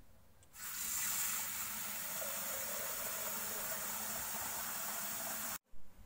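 Water from a kitchen mixer tap running steadily into a stainless steel pot, starting about half a second in and stopping abruptly near the end.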